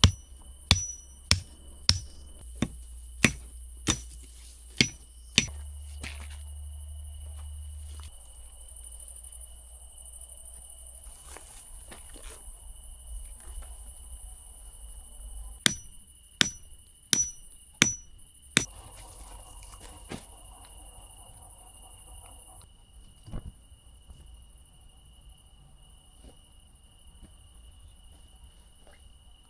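Two runs of sharp, evenly spaced strikes, about two a second: nine or so in the first five seconds, then six more at about sixteen seconds in. Under them a steady high chirring of crickets or other night insects.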